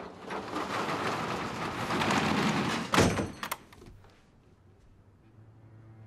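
Metal roll-down security shutter rattling as it is pulled down, growing louder, then hitting bottom with a loud clang about three seconds in, followed by a couple of sharp clicks.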